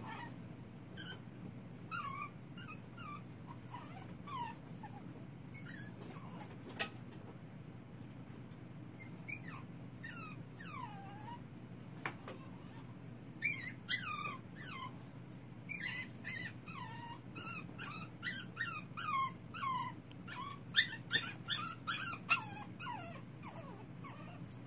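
Young puppy whimpering and crying: short, high, falling whines in irregular bouts, coming thicker and louder in the second half. A few sharp clicks are mixed in, over a steady low hum.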